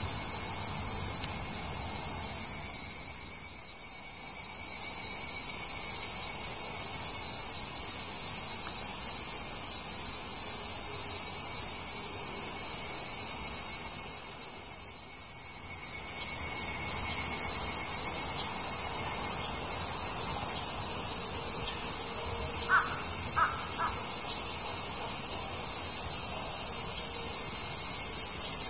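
Steady, high-pitched chorus of cicadas, dipping in loudness twice. About three-quarters of the way through, a bird gives three short calls.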